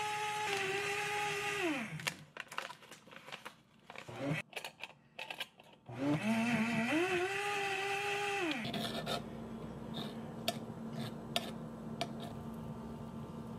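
Blender motor running at high speed on a batch of oats, coconut flakes and water, winding down about two seconds in. Clicks and knocks follow, then the motor runs up again for about two and a half seconds and winds down. After that only a fainter steady hum remains, with a few light clicks.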